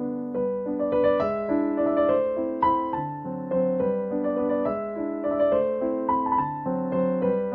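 Background piano music: a gentle melody of single notes over low held notes, at an even pace.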